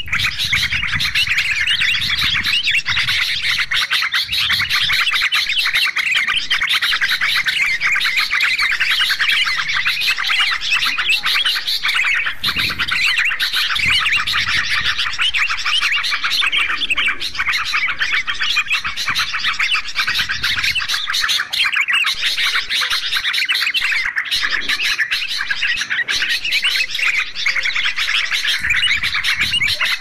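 Dense, unbroken chorus of overlapping bulbul calls and chatter: yellow-vented bulbuls (trucukan) and sooty-headed bulbuls (kutilang) calling at once at a steady level.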